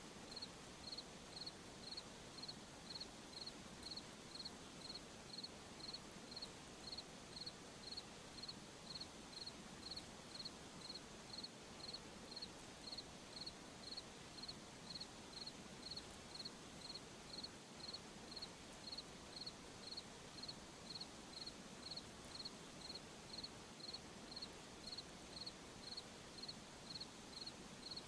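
A cricket chirping steadily, about two short high chirps a second, over a faint even background hiss.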